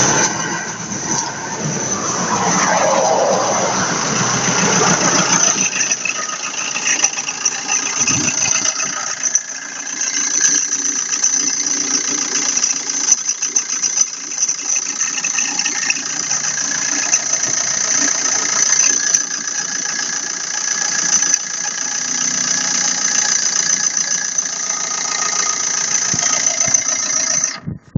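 Opel Astra H 1.3 CDTI four-cylinder diesel running from a cold start, with a high steady whistle from around the alternator belt.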